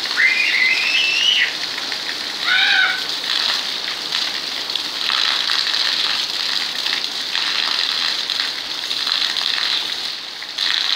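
Heavy rain splashing steadily on a wet concrete floor, with a stream of water pouring down onto it. A small child's high voice squeals twice, once at the start in a long rising cry and again briefly about two and a half seconds in.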